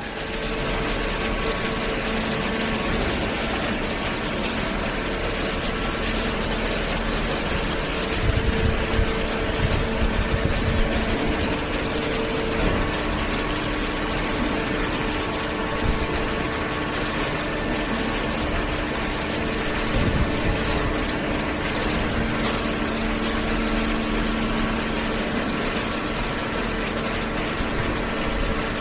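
Horizontal hydraulic cardboard baler running: a steady hum with several held tones from its hydraulic pump and motor, with a few dull knocks in the middle.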